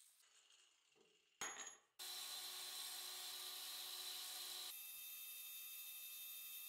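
Belt grinder running with a small steel plate pressed against its abrasive belt: a steady grinding hiss over the machine's hum, starting about two seconds in and easing slightly a little past the middle. Before it, near-quiet with one short scrape about a second and a half in.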